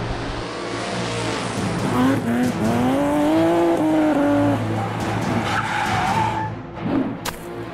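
Added car sound effect: a sports car engine revving up and back down while its tyres skid, with music underneath.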